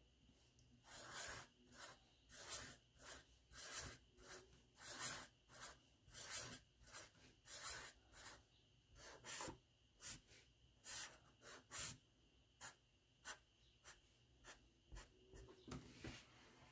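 Permanent-marker tip drawing on paper: a run of short, faint scratchy strokes, about one or two a second, as small circles and then short lines are inked.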